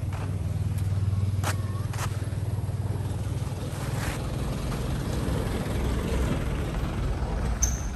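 A vehicle engine running with a steady low hum that turns to a rougher rumble after a few seconds, with a few sharp clicks.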